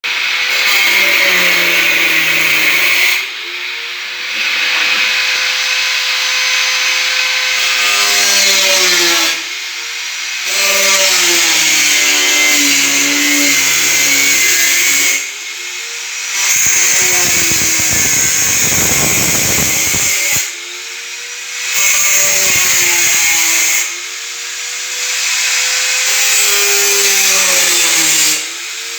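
Handheld electric power tool run in six bursts of a few seconds each, with short pauses between, its motor pitch dipping and recovering within each burst.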